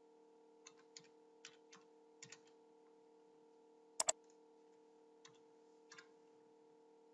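Computer keyboard keystrokes typing a short word, then a sharp double click of a computer mouse about four seconds in and a few lighter clicks after it, over a steady faint hum.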